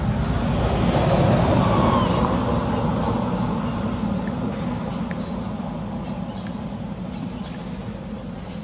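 Low rushing, rumbling outdoor noise that swells about a second in and then slowly fades, with a faint high descending squeak about two seconds in.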